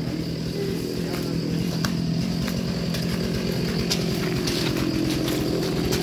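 Two-stroke chainsaw running steadily at the base of a tree trunk, its pitch rising a little near the end.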